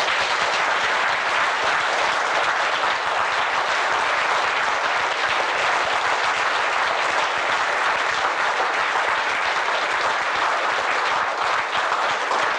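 An audience applauding: many people clapping steadily and without a break.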